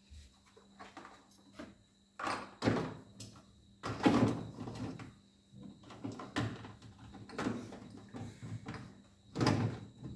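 Items being shifted around and set down inside a refrigerator: a series of irregular scrapes, knocks and rustles, loudest about four seconds in, over a faint steady hum.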